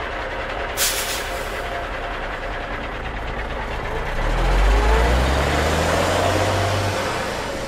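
A heavy truck's engine running, rising in pitch and getting louder about four seconds in, with a short burst of hiss about a second in.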